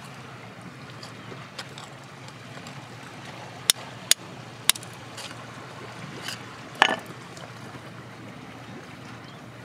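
A thin metal pick tapping and scraping against rock and gritty soil while digging out a stone: three sharp separate clicks a little past the middle, then a louder knock with a short rattle about seven seconds in, over a steady hiss.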